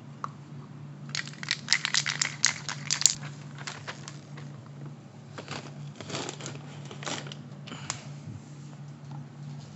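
A quick run of sharp crinkling clicks for about two seconds, then scattered single crackles and taps, over a steady low hum.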